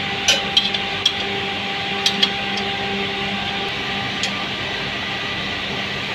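Steady hum of running plant machinery, with a few sharp metal clinks in the first two seconds and one more about four seconds in, from a spanner working a bolt on the packer's impeller housing.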